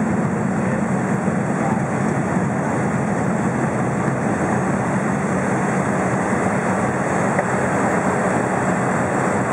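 Steady drone of a Cessna's engine and propeller, heard from inside the cabin, as the plane rolls along a grass and dirt airstrip.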